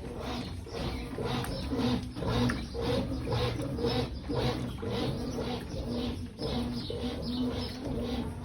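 Brastemp top-load washing machine agitating a wash load: the motor hums in short pulses, about two a second, as the agitator swings back and forth, with water sloshing in the tub.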